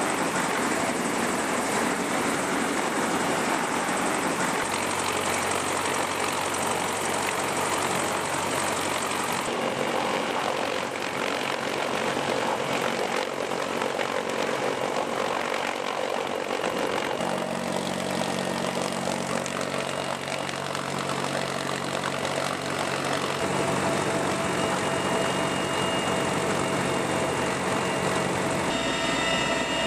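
CH-53E Super Stallion helicopter running in flight: a loud, steady rush of turbine and rotor noise heard from inside the cabin with the rear ramp open. Its tone shifts abruptly a few times.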